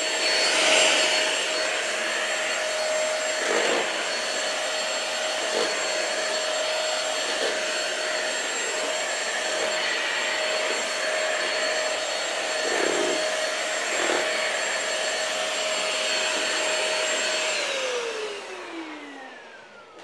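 Upright stick vacuum cleaner running steadily with a motor whine. Near the end it is switched off and the whine falls in pitch as the motor winds down.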